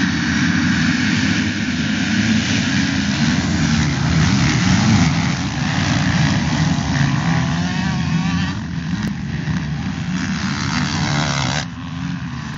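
A whole field of motocross bikes' engines revving hard together as the pack launches off the start and accelerates away. The pitch wavers up and down, and the sound drops abruptly near the end.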